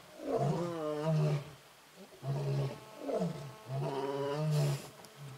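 An animal calling: about four drawn-out pitched calls in a row, each sliding and falling in pitch, with a short hiss near the end.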